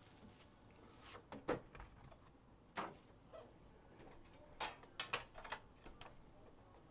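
Light knocks, taps and sliding from a box of trading cards being handled and its lid lifted off: a few scattered clicks, with a quick cluster of them about five seconds in.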